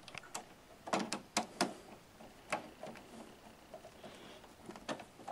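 Irregular light clicks and taps of a screwdriver and stiff copper wire against the terminal screws of a double-pole circuit breaker in an electrical panel, as hot wires are fastened to the breaker.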